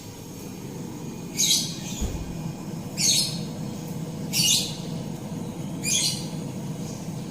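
A bird giving a short, high call over and over, about every second and a half, over a steady low hum.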